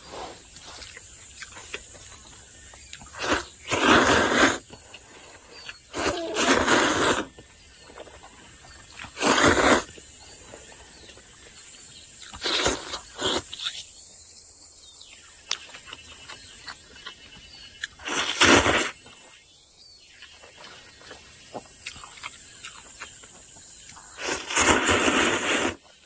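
A person slurping noodles: loud bursts of sucking noise, about seven in all, the last and longest near the end.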